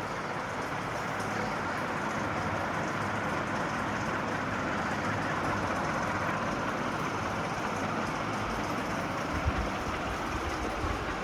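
National F560A1 ceiling fan running: a steady rush of air from the blades over a motor hum, swelling slightly over the first couple of seconds, with a few low bumps near the end.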